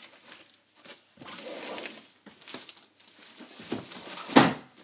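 Packaging being handled: irregular rustling, crinkling and scraping, with one louder scrape near the end.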